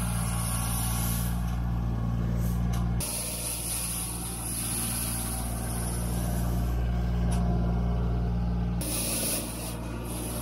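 John Deere 1585 front-mount mower's diesel engine running steadily under load as its front rotary broom sweeps snow, with a steady hiss over the engine. The engine tone shifts abruptly twice.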